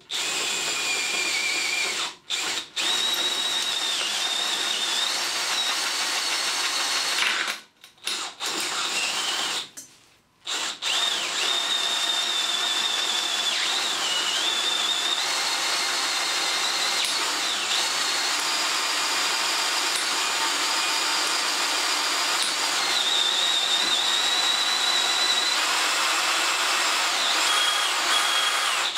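DeWalt 18V cordless drill turning a twist drill bit into a sheared bolt left in a threaded hole, drilling it out. The motor whines steadily, stops briefly a few times in the first eleven seconds, and shifts in pitch now and then.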